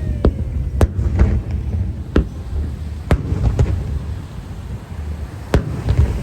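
Aerial fireworks shells bursting in a string of sharp bangs, about eight in all at irregular intervals, over a steady low rumble.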